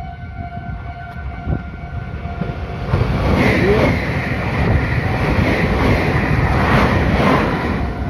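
Meitetsu 2200 series electric train passing close by, its rumble swelling about three seconds in and staying loud, while the level crossing's warning bell rings steadily.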